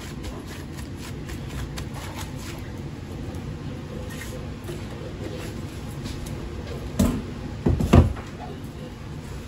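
Kitchen handling sounds: faint rubbing of a plastic-gloved hand oiling a ball of bread dough at first, then two knocks about seven and eight seconds in, over a steady low background rumble.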